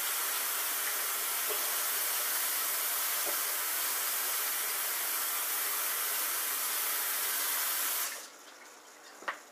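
Kitchen tap running steadily while hands are washed under it, turned off about eight seconds in.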